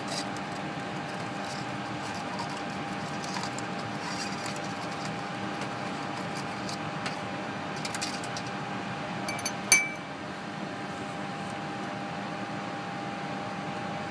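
Glassware being handled, with small light clicks and one sharp, ringing clink of glass on glass about ten seconds in, as the glass hockey-stick spreader is lifted from its beaker. A steady fan hum from the lab cabinet runs underneath.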